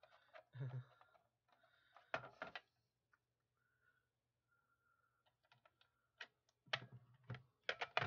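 Scattered light plastic clicks and knocks of a SpectrAlert Advance P2R horn strobe being fitted onto its mounting back plate, a couple about two seconds in and a quicker run of them near the end.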